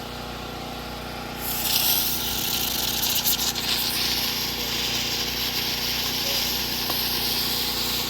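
A firework starts hissing about a second and a half in, a loud high spray of sound with a burst of crackling around its third second, over a steady engine hum.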